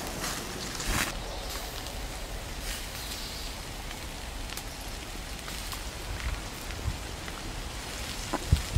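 Pork intestines sizzling on a wire grill over a charcoal fire: a steady rain-like hiss scattered with small crackles, and a sharper pop near the end.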